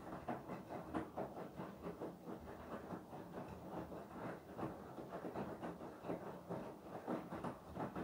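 Beko WTK104121W front-loading washing machine in the wash stage of its Cottons 60 programme: the drum is tumbling the wet, soapy laundry, with water sloshing and splashing in an uneven, continuous rattle.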